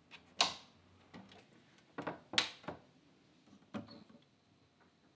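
Sharp mechanical clicks and knocks from a Crosley record player being switched on and its controls operated, about five in all. The loudest come about half a second in and about two and a half seconds in.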